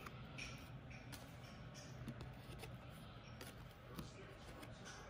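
Faint soft slides and light taps of Topps baseball cards being flipped through by hand, over a low steady hum.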